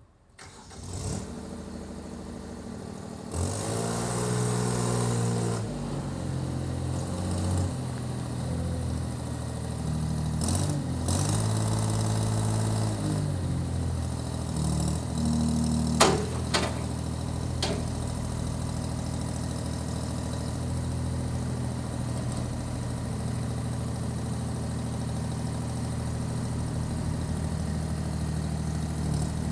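Comet BL20/K4412 backhoe loader's diesel engine starting and catching, then revved up and down twice before settling to a steady idle. A few sharp metallic clanks come around the middle.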